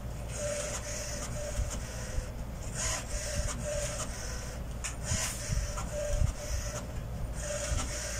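HP Smart Tank 515 inkjet printer printing a colour-heavy image: the print head carriage runs back and forth with a scratchy whir, broken by short pauses every two seconds or so.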